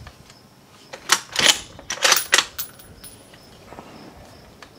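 The bolt of a Ruger Precision Rifle being worked between shots: a quick run of six or seven metallic clicks and clacks as the bolt is lifted, drawn back and pushed home, with insects chirping faintly behind.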